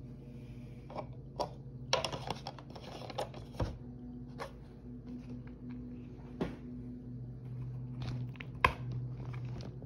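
A plastic screw cap being fitted and twisted onto a plastic gallon milk jug, with a series of small clicks and crackly handling noises and a sharper knock near the end. A steady low hum sits underneath.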